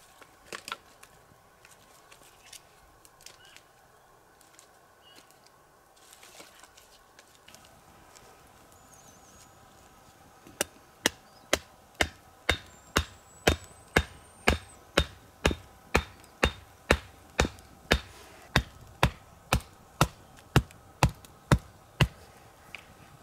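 Wood being chopped: a few scattered knocks, then from about ten seconds in a steady run of about two dozen sharp blows, two a second.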